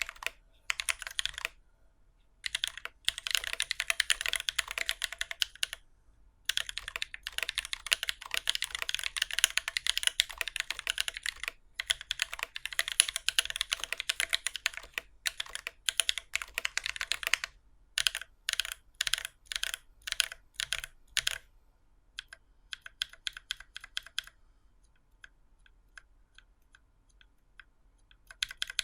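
Typing on a Keycult No.2 Rev.1 mechanical keyboard fitted with lubed Holy Panda tactile switches and GMK keycaps. Keys bottom out hard and loud, in bursts of fast typing with short pauses. About two-thirds of the way through come single key presses at about two a second, followed by lighter typing and a few faint taps.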